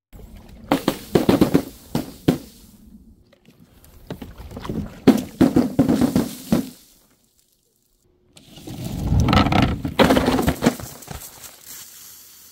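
Objects being dropped and tumbling onto a hard surface, in three separate bursts of knocking and clattering with dead silence between them. The last burst is the longest and starts with a heavy rumble.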